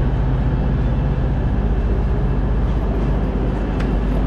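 Train running with a steady low rumble.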